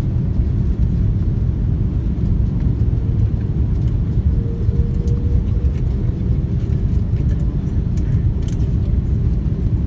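Airliner cabin noise on descent: a steady low rumble of jet engines and airflow heard from a seat by the window.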